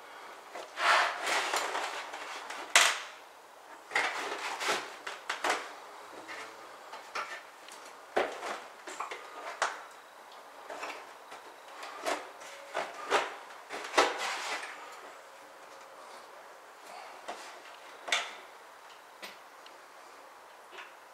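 Irregular clicks, knocks and scuffs of hands and knees working on an acrylic shower pan, with a few sharp clicks standing out, the loudest about three seconds in.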